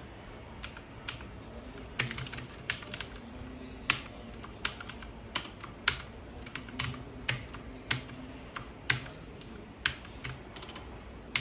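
Typing on a computer keyboard: a run of irregular key clicks, some struck much harder than others.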